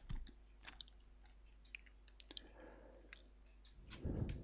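Near silence, broken by faint scattered small clicks and a soft, brief rustle about four seconds in.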